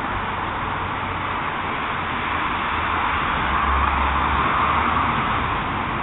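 Steady outdoor background noise picked up by a doorbell camera's microphone, a featureless hiss that swells a little about halfway through. No distinct sound from the animal on the railing.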